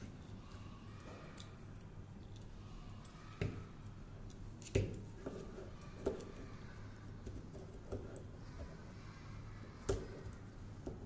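Black plastic microphone shock mount being handled while elastic cord is threaded through its cage: scattered sharp clicks and light knocks of plastic, the loudest about five seconds in, over a faint low hum.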